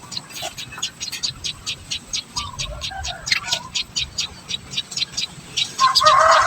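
Society finch nestlings begging: a fast, even run of short high peeps, about five or six a second. Near the end a louder, wavering lower call comes in over them.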